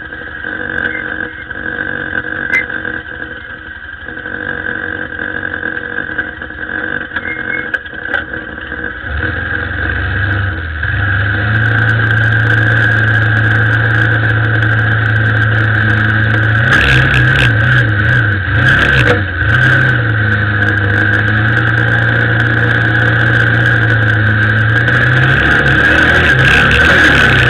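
A vehicle's motor running as it drives: a steady high whine throughout, joined about a third of the way in by a louder low drone that wavers briefly about two-thirds of the way through, then holds steady.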